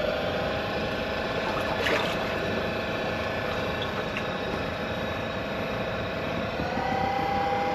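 E-Propulsion X40 electric outboard driving a boat, with a steady whine over the rush of water; the whine rises in pitch near the end.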